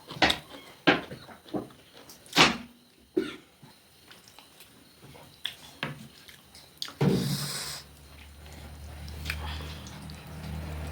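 Close-up eating sounds: chewing, lip smacks and sharp mouth clicks in an irregular run. About seven seconds in comes a brief louder hissing rustle, and near the end a low steady hum grows louder.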